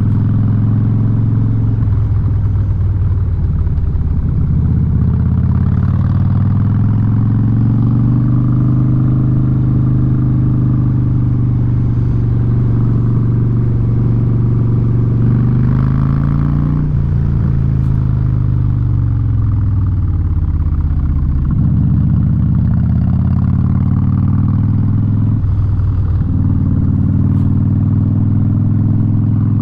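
2017 Harley-Davidson Street Bob V-twin running loud through a Vance & Hines exhaust under way. The engine note holds steady for a while, falls away a little past halfway as the bike slows, then picks up again with a couple of brief breaks in the note.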